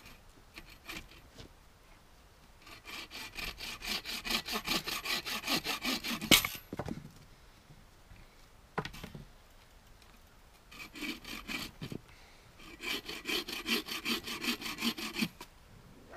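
Bow saw cutting through a log in two bouts of fast back-and-forth rasping strokes, with a pause in between. A sharp knock comes about six seconds in, the loudest sound, and a smaller knock near nine seconds.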